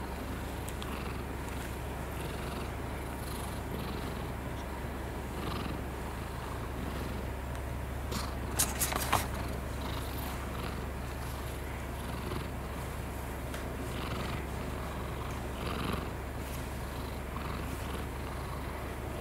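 Domestic cat purring steadily close up while being stroked, with a brief cluster of sharp clicks a little before halfway through.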